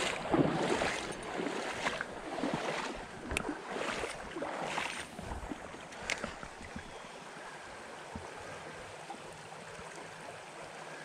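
Shallow, rocky creek running, with uneven water sounds and a few sharp clicks in the first half, settling into a steadier, quieter flow.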